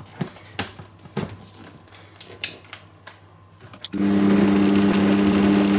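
A few clicks and knocks as the blender jug of a Bosch MUM5 kitchen machine is handled on its base, then about four seconds in the motor starts suddenly and runs steadily, blending a milkshake of frozen strawberries, banana and vanilla ice cream.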